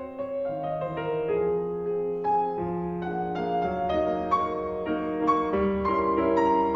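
Background piano music: a gentle melody of single struck notes over sustained lower notes.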